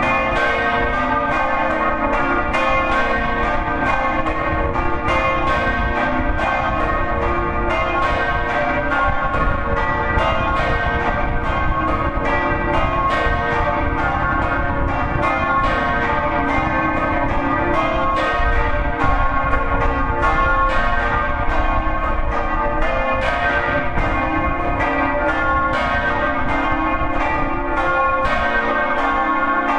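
Daciano Colbachini bronze church bells swinging in the Friulian 'a slancio' style, heard close up in the belfry. Their clappers strike in a fast, uneven run of several strokes a second, and the tones ring over one another without a break.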